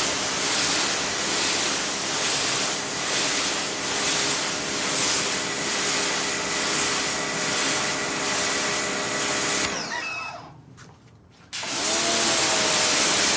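Sun Joe pressure washer spraying through a rinsing nozzle: a steady hiss of water spray over the hum of the pump motor. About ten seconds in, the spray stops and the motor winds down, falling in pitch. About two seconds later it starts back up and the spray resumes.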